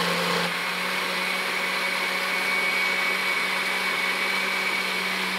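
Countertop blender running at a steady pitch, liquefying a blueberry and yogurt smoothie. It is switched off at the very end, and its motor pitch drops as it winds down.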